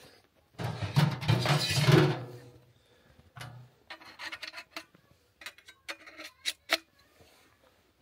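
Sheet-metal stovepipe sections being handled and fitted together: a loud scraping handling noise for about two seconds, a dull knock, then a string of light metallic clicks and clinks.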